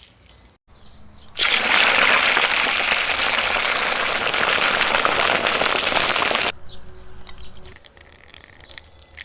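Water gushing in a steady rush for about five seconds, starting and stopping abruptly, with quieter splashing around it.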